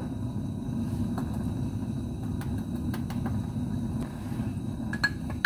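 Steady low rumble of kitchen background noise, with a few faint light clicks of a spoon against a glass jar, more of them near the end, as flour is spooned into a pan of water.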